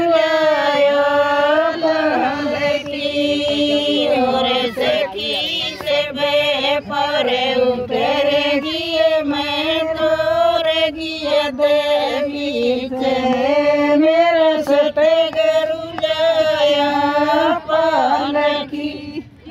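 Women singing a folk song together in chorus, with long drawn-out notes.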